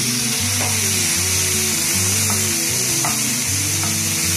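Chopped onions sizzling steadily in hot oil in a nonstick frying pan, stirred with a wooden spatula, with a few soft knocks. Background music with a slow melody plays underneath.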